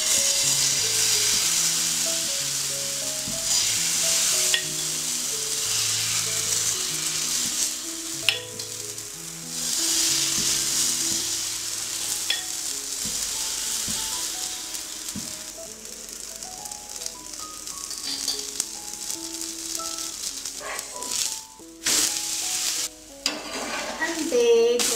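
Wheat-flour dosa batter frying on a hot oiled dosa pan: a loud, steady sizzle that starts as the batter hits the pan and drops out briefly a few times.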